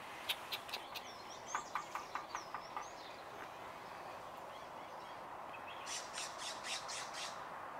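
A jay calling in two quick runs of harsh notes, about four a second, the first near the start and the second about six seconds in. Faint thin chirps from smaller birds come in between.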